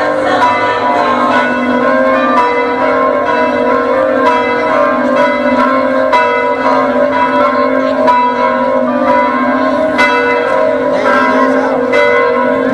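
Church bells pealing: many overlapping strikes that ring on and blend into a continuous, loud bell sound.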